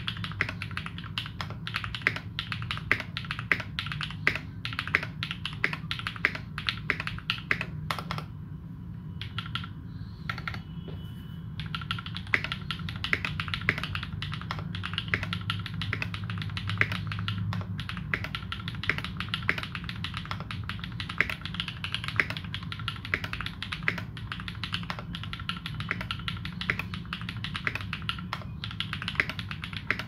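Fast, continuous typing on a Morgan65 custom 65% mechanical keyboard fitted with lubed Holy Panda tactile switches and GMK keycaps. The keystrokes are dense and even, thinning to a short pause about a third of the way through before picking up again.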